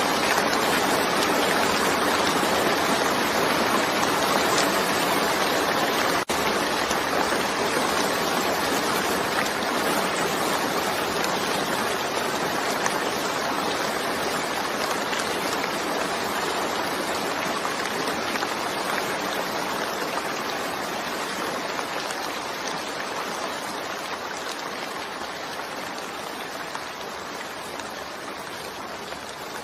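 Steady rain, a dense even hiss, slowly fading down through the second half; a momentary gap about six seconds in.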